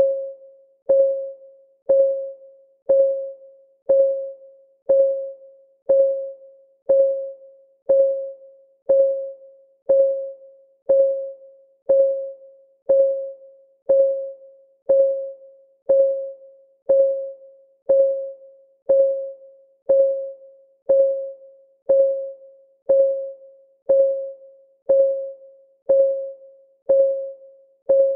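Countdown timer's clock-ticking sound, one tick every second at a perfectly even pace. Each tick is a short, pitched click on the same mid tone that dies away quickly.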